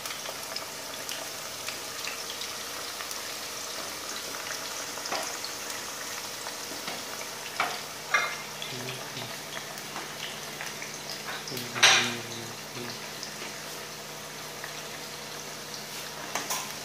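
Potato strips deep-frying in hot oil in a kadhai, a steady bubbling sizzle, with a few small clicks and one sharp knock about twelve seconds in.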